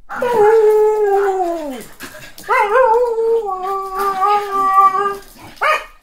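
A dog howling: two long howls, the first sliding down in pitch as it ends, the second wavering at first and then held steady, followed by a short bark near the end.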